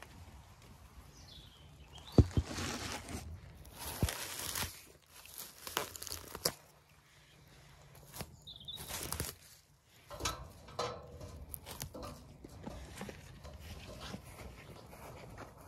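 Handling noise from a camera being moved about and set down in long grass: rustling and brushing with several short knocks, the sharpest about two seconds in.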